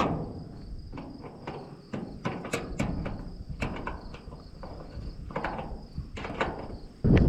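Crickets chirping steadily, with scattered knocks and rustles over them. A louder low rumble comes in near the end.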